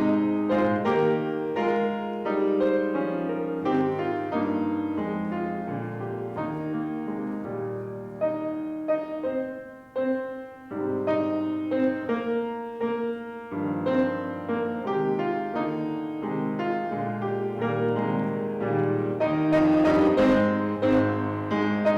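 Solo piano playing slow, sustained chords with a melody above, softening briefly about ten seconds in and growing louder near the end.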